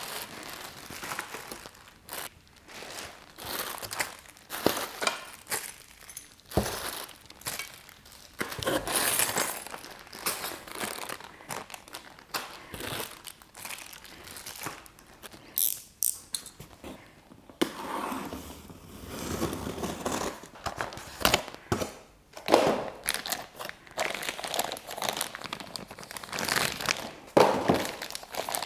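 Packaging crinkling and rustling in irregular bursts as a boxed motorcycle exhaust system is unpacked, with a few sharper knocks.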